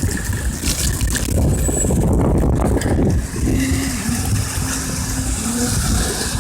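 Loud, uneven rumble of a motor vehicle engine, with a steady hum joining in about halfway through for a couple of seconds.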